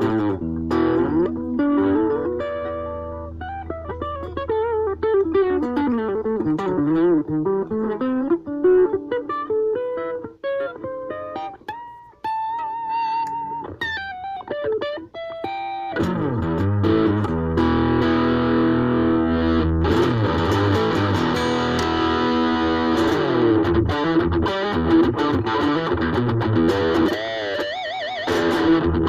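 Ibanez AXS42 electric guitar, rewired with solid-core vintage wire, played through an amp: single notes bent and swept in pitch, then about halfway through a denser, brighter run of sustained chords and riffs.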